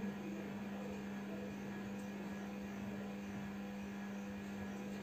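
Faint steady electrical hum: one even low tone with a light hiss under it.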